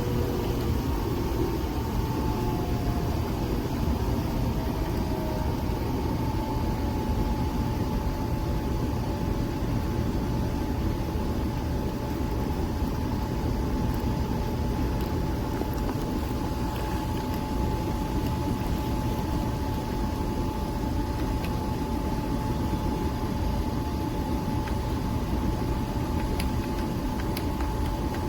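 Nespresso Vertuo Next coffee machine running through a brew: a steady motor hum with a whine that glides to one pitch in the first few seconds and then holds.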